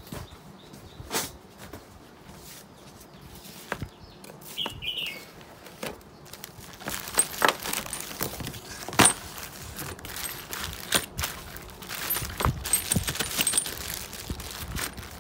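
Plastic bags crinkling and rustling as bagged items are picked up and handled, with sharp clicks and light knocks on the table and cardboard. A few scattered knocks come first; the steady crinkling starts about halfway through.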